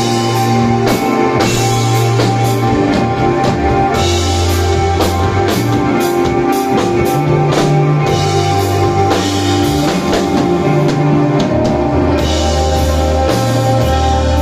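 Live desert rock band playing: electric guitar, bass and drum kit with cymbals, the bass holding long low notes that change every second or two.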